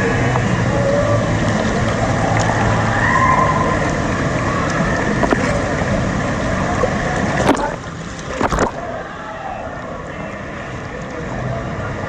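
Rushing, churning water of a wave-driven tube river heard from a rider's tube. There are two sharp splashes or knocks about seven and a half and eight and a half seconds in, and the rush is quieter after them.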